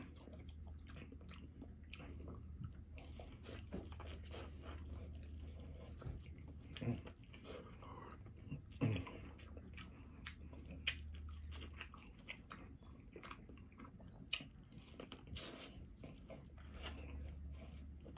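Close-miked biting and chewing of corn on the cob: soft, scattered wet mouth clicks and small crunches. A low steady hum lies beneath, dropping out for a few seconds past the middle.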